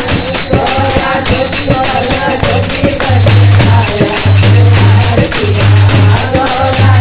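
Women singing a Hindi devotional bhajan through microphones and a loudspeaker, accompanied by rhythmic hand clapping and jingling percussion keeping a steady beat.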